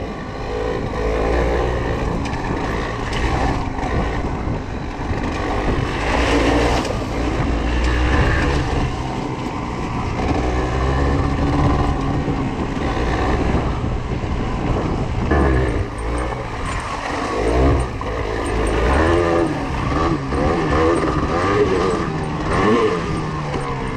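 Yamaha TDR 125's two-stroke single-cylinder engine revving up and down over and over as the motorcycle is ridden over slippery ground. A steady low wind rumble sits on the microphone underneath.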